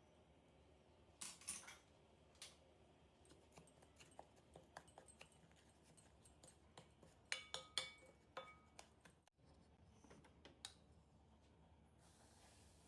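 Scattered light clicks and taps of kitchen utensils against dishes. About seven to eight seconds in comes a quick run of louder clinks that ring briefly, like a spoon striking a metal or glass bowl.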